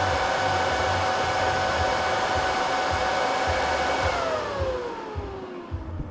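A WSME-200 LCD AC/DC welder's cooling fan runs with a steady rush and whine. About four seconds in it spins down, its pitch falling as it slows.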